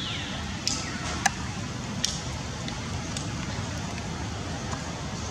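Steady outdoor background noise with a few sharp clicks, and a short high squeal falling in pitch right at the start.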